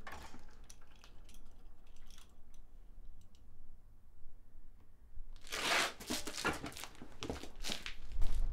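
Hands working small parts at a workbench: scattered light clicks, then from about five seconds in a run of louder, rough rustling and crinkling bursts.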